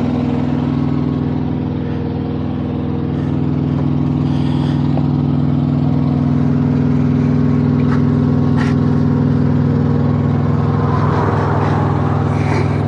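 Diesel engine idling steadily on a parked heavy truck, with a couple of light metallic clicks about eight seconds in.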